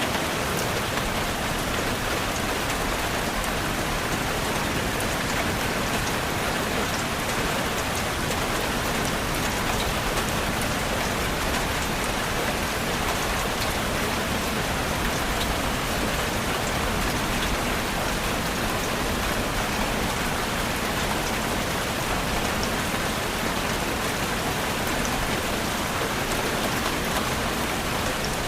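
Steady rain falling, a dense even patter of drops on a surface.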